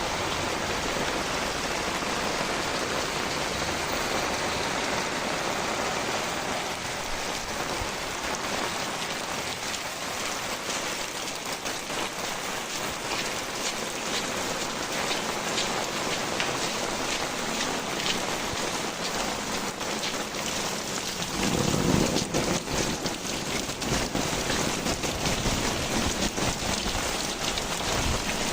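Heavy rain pouring steadily, with drops ticking sharply on nearby surfaces. About three-quarters of the way in, a brief low rumble rises above the rain.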